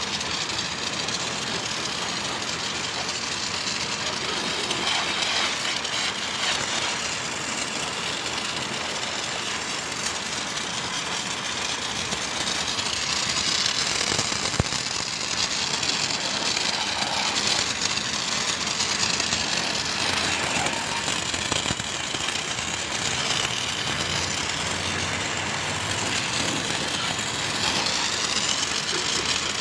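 Pressure washer running, its high-pressure water jet spraying against a motorcycle in a steady hiss that swells and fades as the spray is moved over the bike.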